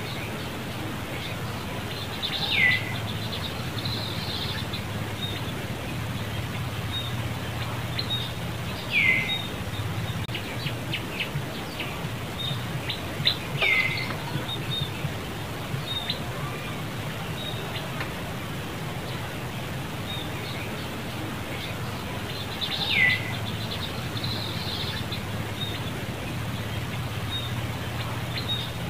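A bird calling, four short calls that each slide quickly downward in pitch, several seconds apart, with faint high chirps between them over a steady low hum.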